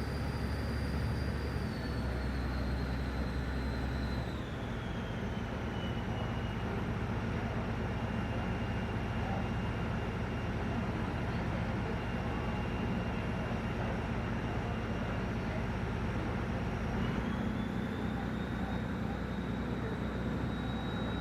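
Engines of a Magic Kingdom ferry boat running steadily with a low drone. A thin high whine falls in pitch a few seconds in and rises again near the end as the engine speed changes.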